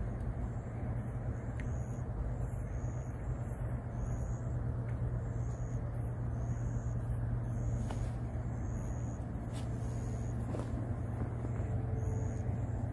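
Steady low outdoor rumble with a faint high chirp repeating a little more than once a second, and a few light clicks.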